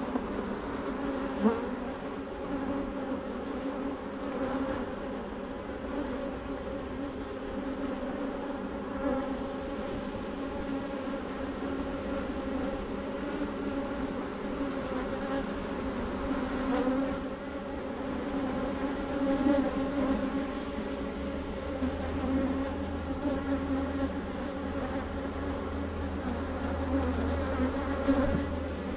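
A swarm of agitated honeybees buzzing around an open hive, a steady many-voiced hum, with one sharp tap about a second and a half in.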